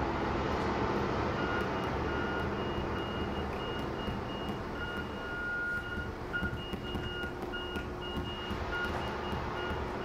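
Live electronic noise music: a dense rumbling hiss over a low drone, with high synthesized beeps switching on and off in an uneven pattern.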